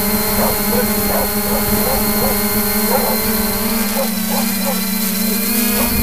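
Quadcopter drone's propellers humming steadily at a constant pitch.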